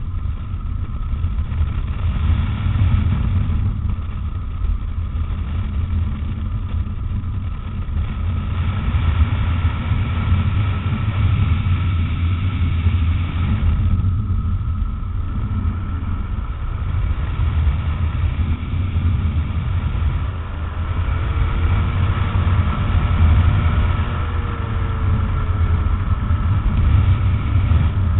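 Rotax 912 four-cylinder engine of a Tanarg weight-shift microlight trike droning steadily in flight, its pitch wavering slightly in the second half.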